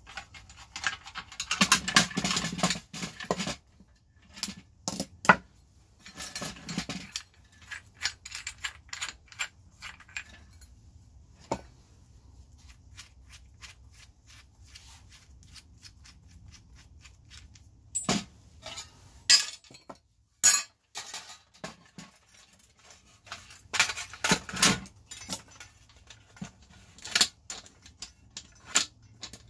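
Scattered metal clicks, clinks and scrapes from a screwdriver and gloved hands taking apart a cast-aluminum security floodlight fixture. There are denser bursts of scraping and rattling near the start, around the middle and again a few seconds before the end.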